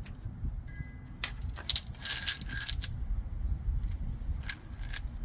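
Steel adapter discs and cups from a wheel bearing press tool kit clinking and ringing against each other as they are handled. The clinks come in a cluster from about one to three seconds in and twice more near the end, over a low steady rumble.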